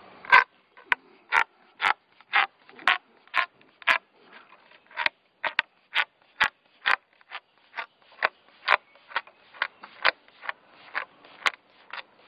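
Plastic LED lens being pressed into an aluminum extrusion, snapping into place with a little snappy click about twice a second as the hand works along its length.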